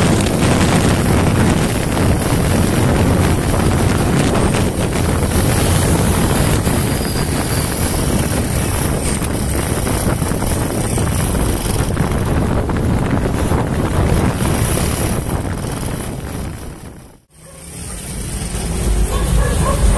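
Honda TMX 125's single-cylinder four-stroke engine running hard at about 120 km/h, mixed with heavy wind rush on the microphone. Near the end the sound dips to silence for a moment and comes back.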